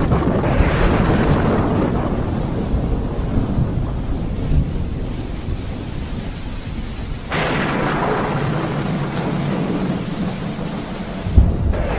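Thunder rolling over steady rain. A rumble fades over the first few seconds, a new clap breaks suddenly about seven seconds in and rolls on, and a sharp, loud crack comes near the end.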